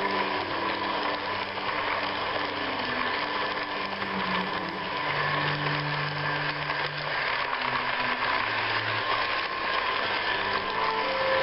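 Toy train set running: a steady electric motor whir with wheel and track noise, with faint shifting low tones beneath.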